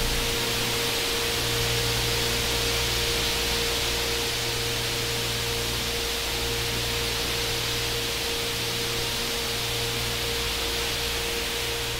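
Sonified flickering brightness of a star: a steady hiss that stands for granulation, hot gas welling up and cool gas sinking at the star's surface. A steady mid-pitched tone and a low hum run beneath the hiss.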